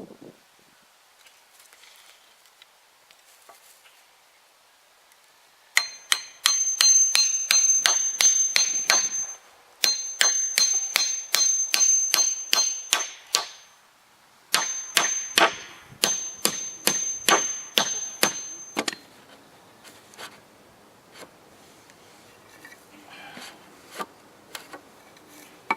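Hammer driving nails into wooden concrete form boards: three bouts of quick blows, about four a second, each with a high metallic ring. Lighter scattered knocks follow near the end.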